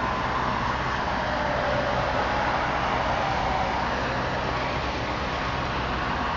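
Truck-mounted crane's engine running steadily under load as it hoists a heavy load, with a faint higher whine over a constant low drone. Road traffic noise is mixed in.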